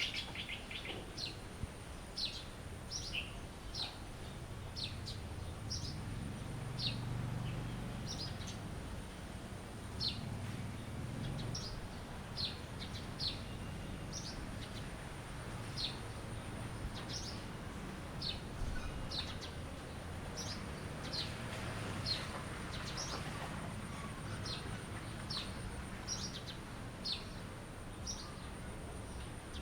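A bird calling with short, high, downward-slurred chirps, about one or two a second, over a low steady background rumble and a faint, steady high-pitched whine.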